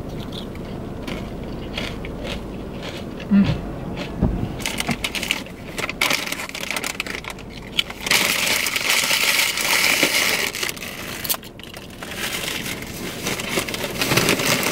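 Crunching and chewing of ridged potato chips (Ruffles), a run of quick crackly bites. About eight seconds in, the plastic chip bag crinkles loudly for a few seconds as a hand rummages in it, then the crunching picks up again.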